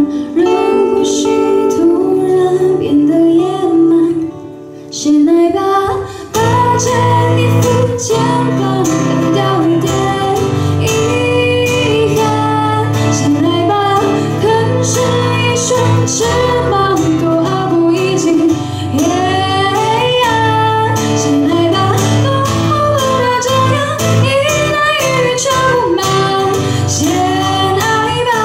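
A woman singing into a microphone, amplified, with strummed and picked acoustic guitar accompaniment; the music dips briefly about four seconds in, then the voice and guitar carry on.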